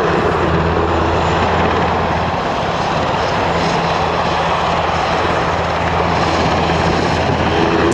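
Italian Navy NH-90 NFH twin-turbine helicopter in flight: a steady, loud rush of rotor and turbine noise over a low hum.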